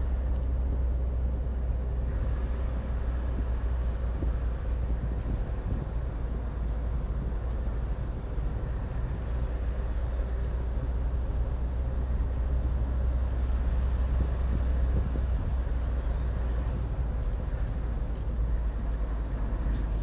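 A car driving along a road, heard from inside the cabin: a steady low rumble of engine and tyres.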